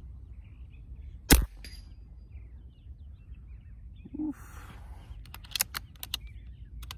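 A single shot from a .22 (5.5 mm) Beeman Commander PCP air rifle firing a 25-grain H&N slug, a sharp report about a second in. A few seconds later comes a quick series of clicks from handling the rifle.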